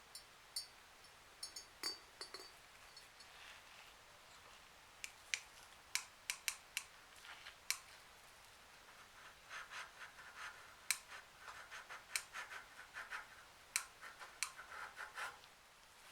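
Hand work on small metal parts of an old blowtorch: scattered sharp clicks and taps, then from about nine seconds in a run of short scraping strokes mixed with more clicks.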